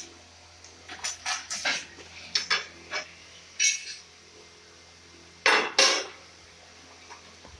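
A metal straightedge clinking and knocking against a large ceramic floor tile as it is handled and laid across the tile. There is a scatter of sharp clinks, then two loud knocks in quick succession about five and a half seconds in.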